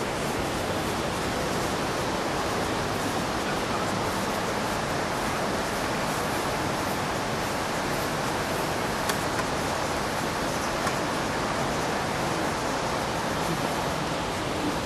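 Steady rushing of water pouring over a river weir, an even, unbroken roar with no change in level.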